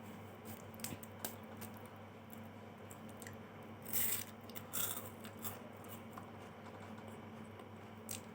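Faint chewing of a mouthful of Superstar chocolate wafer bars, with scattered small clicks and two short crunches about four and five seconds in, over a low steady hum.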